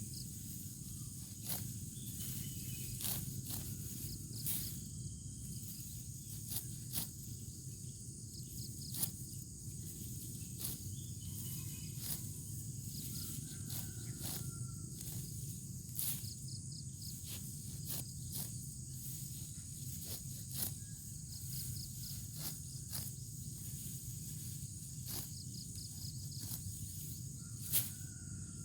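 Steady high-pitched insect buzzing over a low outdoor rumble, broken by frequent irregular sharp clicks and rustles, with a few faint short chirps.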